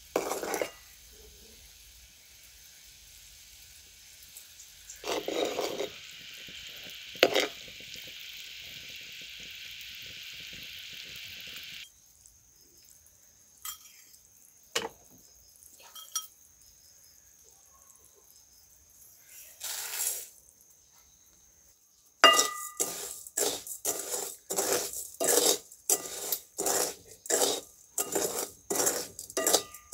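Sugar syrup sizzling in a cast-iron pot with a few scrapes of a spoon. After a sudden cut, a spoon scrapes and stirs the rice mixture against the pot's iron sides in quick strokes, about two a second.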